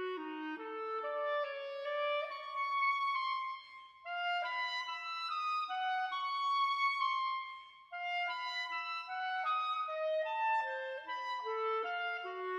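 Background music: a melody on a single woodwind instrument, held notes moving step by step, with short breaks between phrases about four and eight seconds in.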